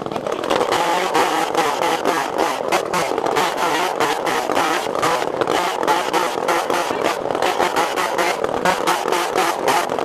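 Wood-Mizer LX55 portable bandsaw mill running steadily.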